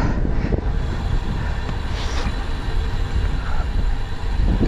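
Steady low rumble of wind buffeting the microphone of a bicycle in motion.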